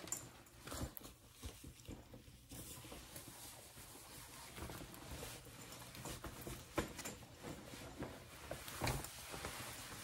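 Faint rustling and scattered soft knocks of a black leather Tory Burch jacket being put on.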